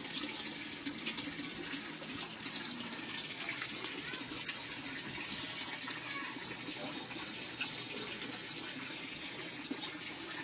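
Running water splashing steadily, an even rushing with small scattered splashes.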